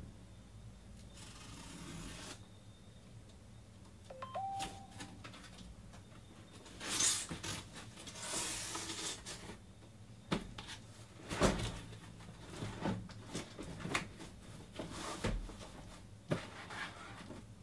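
Cardboard shipping case being opened and handled: a box cutter slicing the packing tape with a hiss, then cardboard scraping and rustling as the flaps are pulled open and the boxes inside are shifted, with scattered knocks and taps on the cardboard. A brief pitched tone sounds about four seconds in.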